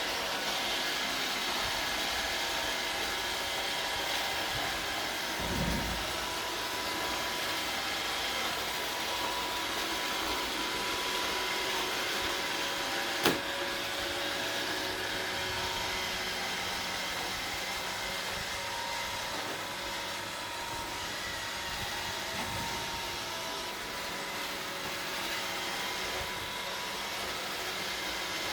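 iRobot Roomba 780 robot vacuum running, a steady hum of its motors and brushes, with one sharp knock about halfway through.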